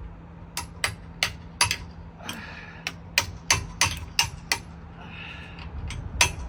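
A hammer striking metal in a series of about a dozen sharp blows, with a pause of over a second about two-thirds of the way through: knocking apart a crane pulley whose bearing has rusted and seized onto its bolt.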